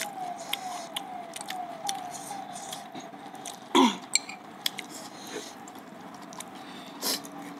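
Close-up eating sounds of spicy ramen noodles: chewing, with short clicks of metal forks against glass bowls. About four seconds in there is a short, loud vocal sound that falls in pitch, like a cough or throat clearing.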